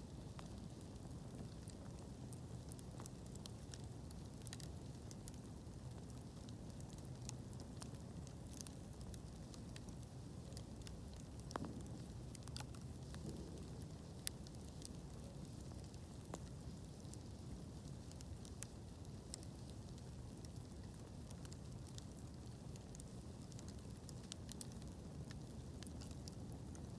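Wood bonfire burning, with irregular sharp crackles and pops over a steady low rush of flame. A couple of louder snaps come about midway.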